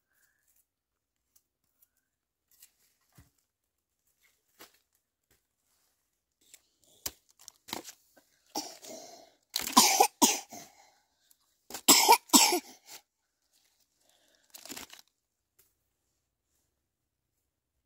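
A person coughing in two short fits a couple of seconds apart, each of a few quick coughs, with a softer cough near the end and faint clicks before.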